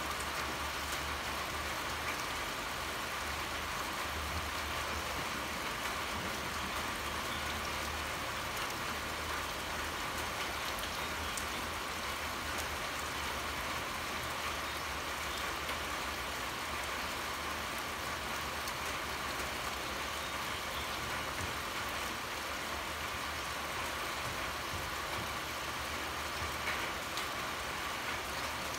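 Steady pouring rain falling on surfaces, an even hiss with faint scattered drop ticks, over a steady low rumble.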